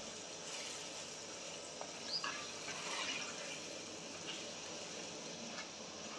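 Wooden spatula stirring chopped tomatoes and spices in a pot over a faint wet simmer, with a few soft scrapes, the plainest about two and three seconds in.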